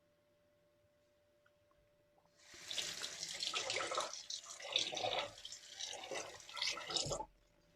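Bathroom tap running into a sink for about five seconds, the splashing rising and falling unevenly as a safety razor is rinsed under the stream; the water starts a couple of seconds in and is shut off abruptly near the end.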